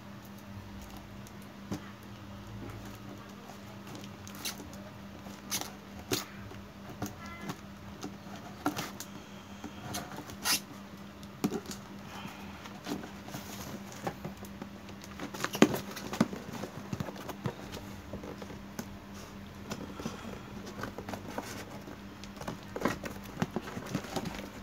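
Scissors snipping and scraping through packing tape and cardboard on a parcel box, with hands pressing and rubbing the cardboard: irregular sharp clicks and scrapes, the loudest about two-thirds of the way through, over a faint steady hum.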